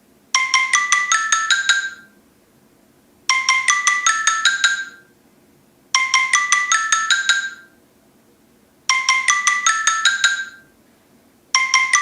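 Samsung Galaxy S6 Edge stock ringtone: a bright, marimba-like phrase of about eight quick notes stepping upward in pitch, repeated about every three seconds with short pauses between. Four full repeats sound, and a fifth starts near the end and is cut off.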